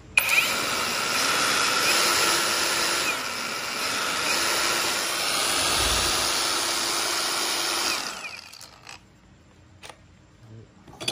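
Cordless angle grinder running with no load for about eight seconds, then winding down and stopping.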